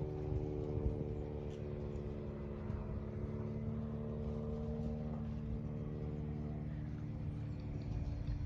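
Propeller light aircraft droning overhead: a steady engine hum of several evenly spaced tones over a low rumble, the higher tones fading away after about five seconds as it moves off.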